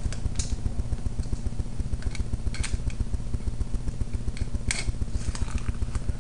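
Tape being picked and peeled off a card's packaging: a handful of brief scratchy crackles, over a steady low pulsing hum.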